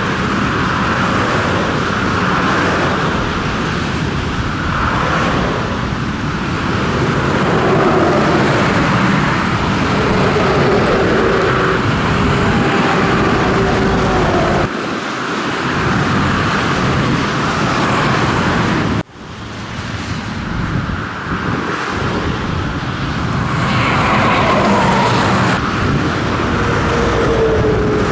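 Scania truck on the road: engine running under road and tyre noise, its pitch rising and falling. The sound steps down about 15 seconds in, then drops off abruptly near 19 seconds before building back up.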